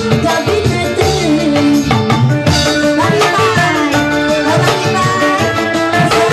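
Live Indonesian stage-band music: a keyboard-led melody with sliding notes over a busy hand-drum rhythm.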